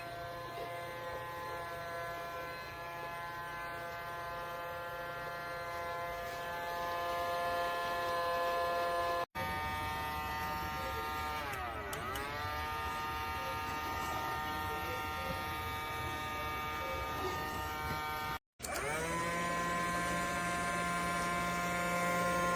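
A small electric motor whining steadily, with two brief breaks. About twelve seconds in its pitch sags and recovers, and after the second break it comes back slightly high and settles.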